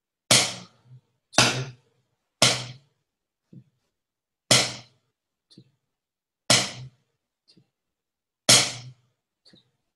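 A drum practice pad struck to play a bass drum part: six loud single hits, the first three about a second apart and the rest about two seconds apart, with fainter hits between some of them.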